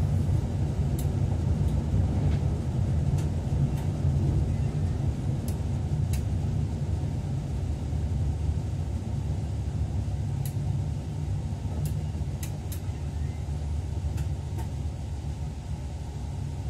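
A train running along the track, heard from inside the driver's cab as a steady low rumble, with a scattering of faint clicks and a slight easing toward the end.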